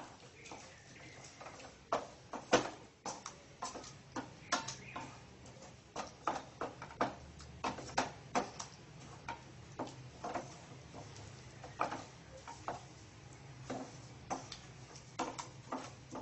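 A spatula knocking and scraping against a stainless steel pan while stirring a thick masala: irregular sharp clicks about once or twice a second, over a low steady hum.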